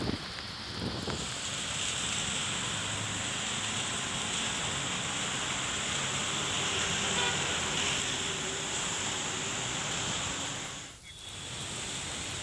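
Steady hiss of rain with traffic on waterlogged roads, dipping out briefly near the end.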